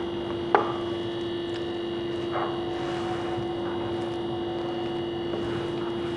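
A steady electrical hum with a faint high whine above it. A single sharp knock comes about half a second in, and a softer one near the middle.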